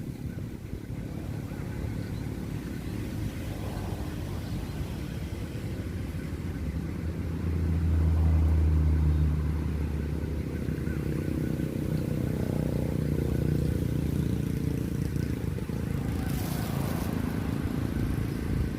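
Low engine hum of a motor vehicle, swelling louder about eight seconds in and easing off again, with a brief rustle near the end.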